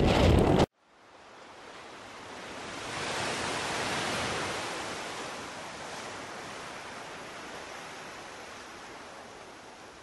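Wind buffeting the microphone over storm surf, cutting off abruptly under a second in. Then a smooth rush of ocean surf swells to a peak a few seconds in and slowly fades away.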